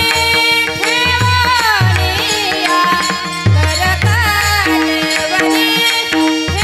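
A woman singing a Marathi devotional kirtan song with a wavering, ornamented melody, accompanied by a pakhawaj whose deep bass strokes slide down in pitch, over a steady held harmonium tone.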